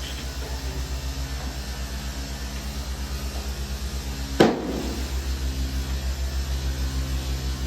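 A steady low machine hum with a fast, even pulse, broken by one sharp knock a little over four seconds in.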